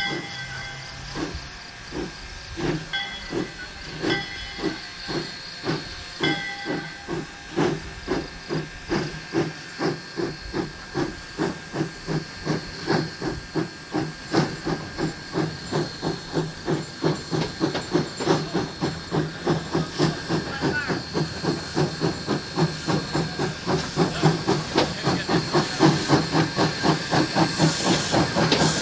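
Flagg Coal 75, a small 0-4-0 saddle-tank steam locomotive, working and chuffing as it approaches, its exhaust beats hissing with steam. The beats start about a second apart and quicken to about three a second as it picks up speed, growing louder as it draws near.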